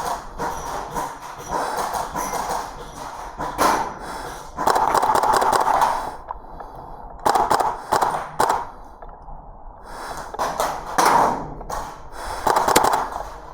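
Airsoft gunfire: sharp single shots fired at irregular intervals, between stretches of rustling noise.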